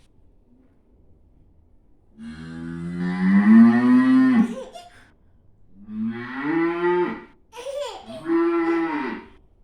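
Cow mooing three times: a long low moo about two seconds in, then two shorter moos.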